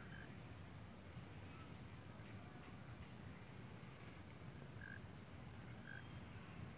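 Faint outdoor ambience: a few distant bird calls, high arching chirps every two to three seconds, over a low steady rumble.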